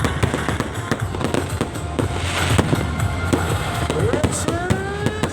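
Fireworks going off in a dense run of crackling pops and bangs. Near the end come several whistles that rise and then fall in pitch. Music plays underneath.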